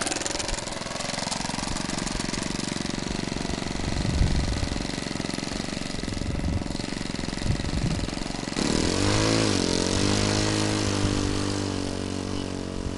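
Radio-control aerobatic model airplane's engine running: a steady idle at first, then, about eight and a half seconds in, it abruptly turns louder and clearer, its pitch wavering up and down before settling and easing off a little toward the end.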